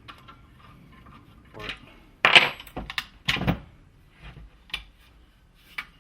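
Metal parts of a pneumatic framing nailer clicking and knocking as it is worked apart by hand, with two louder knocks about two and three seconds in.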